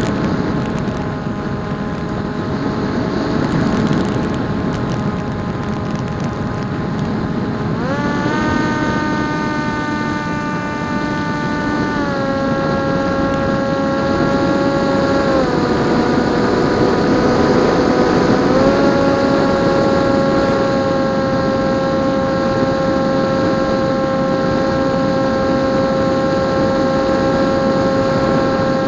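Electric motor and propeller of a PopWing flying wing whining in flight over a steady rush of wind noise. The pitch steps up about eight seconds in, drops back in two steps, then rises again a little past halfway, as the throttle is changed.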